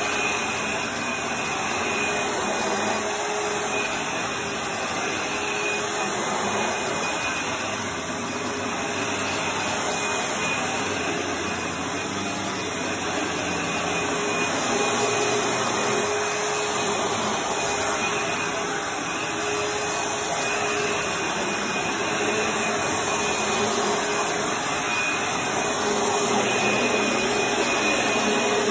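Upright vacuum cleaner running steadily as it is pushed back and forth over rugs and a wooden floor, its motor note wavering slightly with each stroke.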